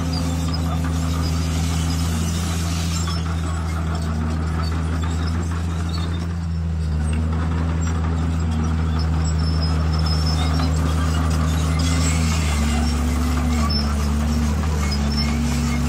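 Heavy diesel engine of earthmoving machinery running steadily, its pitch dipping and recovering several times as it works.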